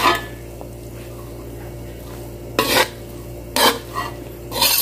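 Metal spatula and ladle scraping and clanking against a metal wok while stir-frying noodles: one stroke at the start, then three more in the last two seconds, over a steady low hum.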